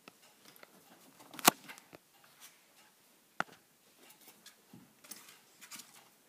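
Five-week-old puppies scuffling and playing: scattered light clicks and scrabbling, with two sharp knocks, the loudest about a second and a half in and another near the middle.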